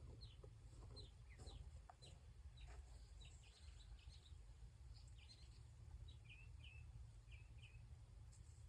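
Faint outdoor birdsong: a scattering of short, high chirps and calls, with a few hooked notes repeated near the end, over a low steady rumble.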